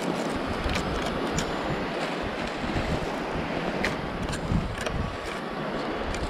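Wind buffeting the microphone, with a few short clicks and crunches from footsteps on pebbly sand.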